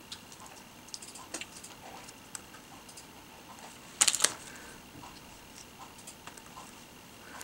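Light taps and rustles of paper stickers and cardstock being handled, with a short, loud crinkle of the clear plastic sticker sheet about four seconds in.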